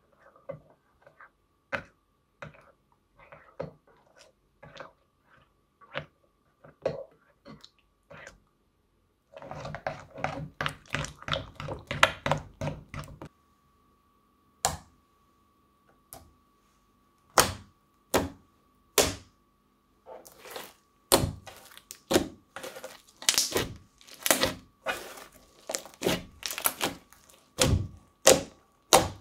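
Crunchy slime being poked and squeezed by hand: sharp clicks and pops, with dense runs of crackling about ten seconds in and again through the last nine seconds or so.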